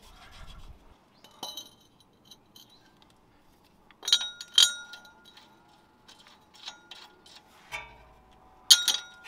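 Steel bolt and hardware clinking against a rusty steel coil-spring seat on the axle. There are a few sharp clinks, two about four seconds in that leave a short ringing tone, and the loudest near the end.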